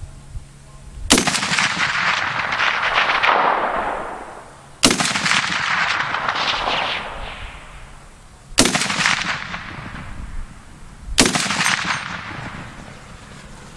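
Serbu BFG-50A semi-automatic .50 BMG rifle fired four times, a few seconds apart. Each sharp report is followed by a long rolling echo that fades over about three seconds.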